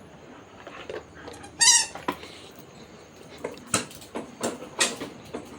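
A dog playing with a ball: one short high-pitched squeak about a second and a half in, then a few sharp knocks and taps.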